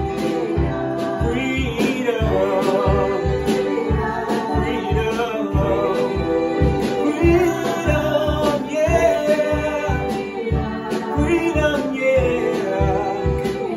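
Gospel praise and worship song: singers' voices over backing music with a steady beat.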